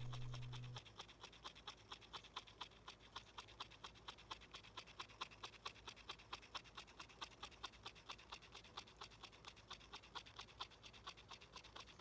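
A parrot grinding its beak, the lower mandible scraping against the upper in a faint, rapid, even clicking of several strokes a second. This wears the lower beak down and keeps it from growing too long. Background music fades out in the first second.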